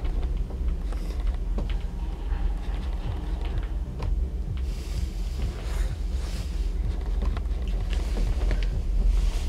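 Closed bubble-covered chairlift chair riding along the haul rope: a steady low rumble with scattered light creaks and ticks from the chair. A hiss swells briefly about halfway through.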